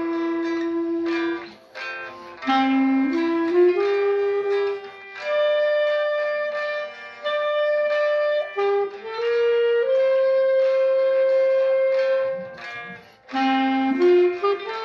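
Moresk M61 B-flat clarinet playing a slow hymn melody in long held notes, with short breaks between phrases, over a classical guitar backing track.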